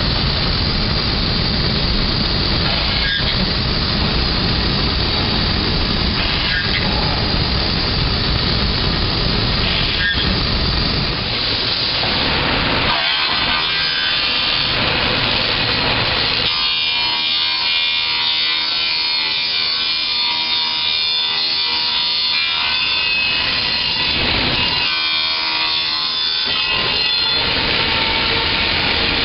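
CNC router spindle machining fiberglass reinforced plastic: a loud, steady cutting noise. About halfway through the low rumble drops away, leaving a high whine of several steady pitches, and the heavy cutting noise comes back near the end.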